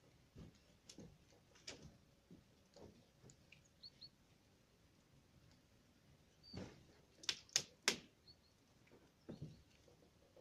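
Scattered knocks and clicks from work on a metal canopy frame with polycarbonate sheeting. Three sharp clicks come in quick succession a little past halfway.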